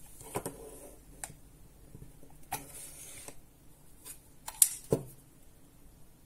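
Handling of a plastic multi-port USB wall charger and its braided cable: a series of short sharp plastic clicks and soft rustling as the cable plug is pulled from the charger and the charger is turned in the hands. The loudest are two clicks close together about five seconds in.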